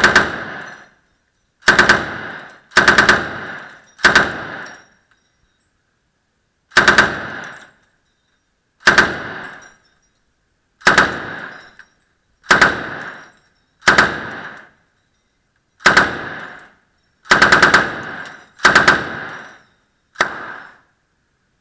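M60 belt-fed 7.62 mm machine gun firing about thirteen short bursts of a few rounds each, a second or two apart, each burst followed by a short fading echo. The last burst comes near the end.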